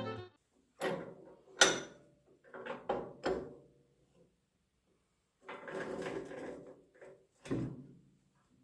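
A series of short knocks and scraping sounds with silent gaps between them: a sharp knock about a second and a half in, a few more soon after, a longer scrape around the middle, and a last knock near the end.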